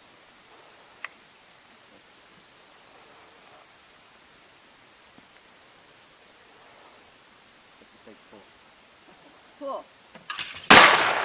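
Steady high insect chirring, then near the end a single loud shotgun shot that fades away over a second or more.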